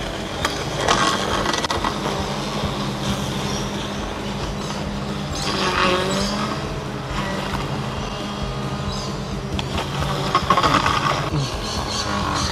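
Mammotion Luba robot lawn mower's electric drive and blade motors running with a steady hum as it mows long grass on a slope. Louder noisy surges come three times, about a second in, around six seconds and near the end, as the cutting load rises.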